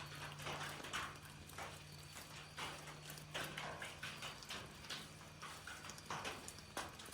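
A house cat close to the microphone, purring and breathing in soft rhythmic bursts about once a second.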